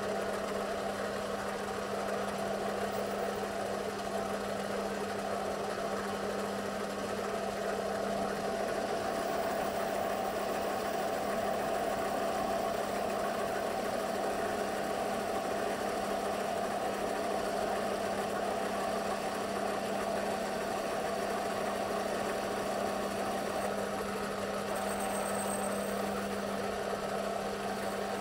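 Metal lathe running while its tool takes a cut on a large spinning metal disc: a steady motor hum under the even noise of the cut, unchanging throughout.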